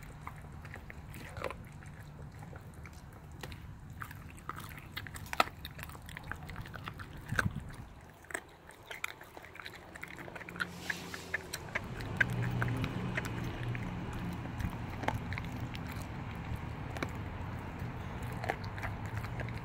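Renascence Bulldogge puppy chewing a raw chicken leg quarter: irregular crunches and clicks as its teeth work the raw bone and meat, over a low background hum.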